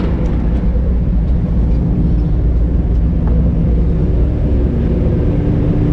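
Passenger ferry's engines running steadily at the pier: a loud, even low rumble with a steady hum over it.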